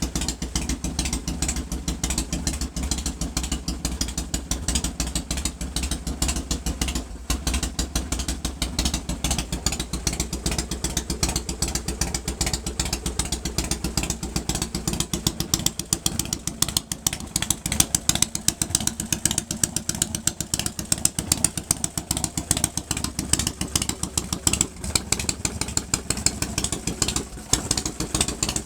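1997 Harley-Davidson Fat Boy's 1340 cc Evolution V-twin with Mikuni carburetor idling, a little louder from about halfway. It has just come through a hard start, caused by a dry fuel bowl after a month of sitting.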